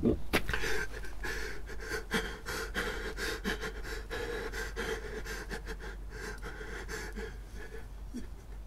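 A man breathing heavily and raggedly, in short rapid breaths, opening with a sharp knock and fading toward the end.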